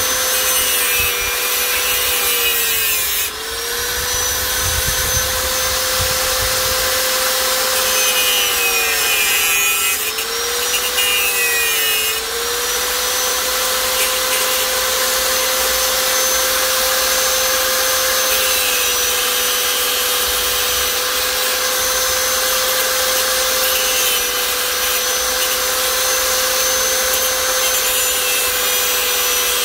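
Small high-speed power tool running with a steady whine and a rasping grind as it cuts into material. Its pitch dips briefly three times, about 3, 9 and 12 seconds in, as it bites under load, then recovers.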